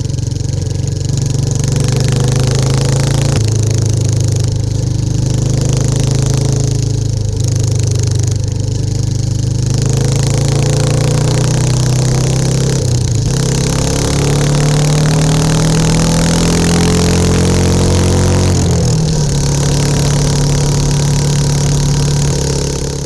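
Royal Enfield Classic 350's single-cylinder engine heard through a Hitchcock's free-flowing exhaust while the bike is ridden on the road, the exhaust note rising with speed and dropping back at each of several gear changes.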